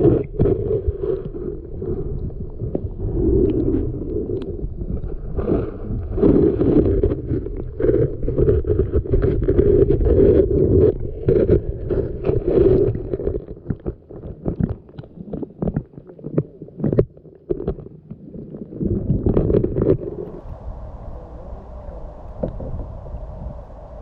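Creek water sloshing and gurgling heard underwater, muffled, with many small knocks and clicks. About twenty seconds in it changes to a steadier, quieter rush as the microphone comes up out of the water.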